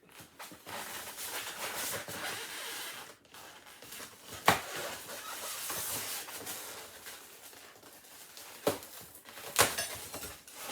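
Packaging rustling and crackling as a boxed birdbath stand is dug out and handled, with three sharp knocks or clicks in the second half, the loudest about four and a half seconds in.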